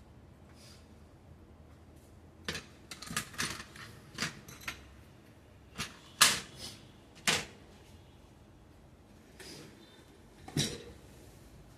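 Irregular clicks and knocks of hard objects being handled, in clusters starting about two and a half seconds in, the loudest about six seconds in, with a last knock near the end.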